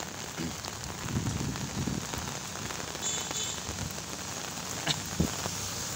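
Steady rain falling on a wet paved road, with two short knocks about five seconds in.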